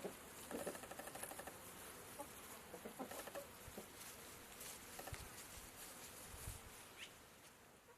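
Faint bird calls: a short rapid rattling call about half a second in, a few scattered calls, and a brief high chirp near the end, over a faint outdoor hiss.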